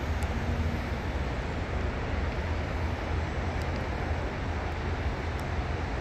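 2018 Chevrolet Camaro SS's 6.2-litre V8 idling steadily through its quad-tip performance exhaust, a deep, even rumble with no revving.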